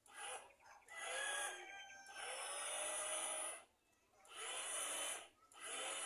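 Small electric motor of a home-made remote-controlled bird-cage hoist starting and stopping four times, hauling up the line to lift a zebra dove cage. Its whine rises in pitch as it gets going each time.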